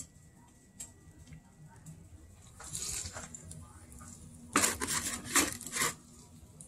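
Kitchen handling sounds as a floured frozen minute steak goes into hot grease in a pot: a few light clicks and a brief hiss, then several loud sharp bursts of crackle and rattle between about four and a half and six seconds in.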